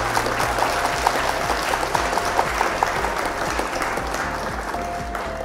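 Applause sound effect, a dense clapping crowd that swells early and slowly fades, laid over steady background music.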